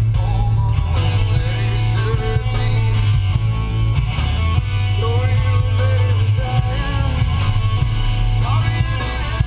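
Rock song with guitar and a singing voice over a heavy, steady bass.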